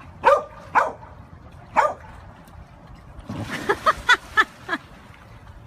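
A dog giving short, high yips: three spaced apart in the first two seconds, then a quicker run of about five around the middle.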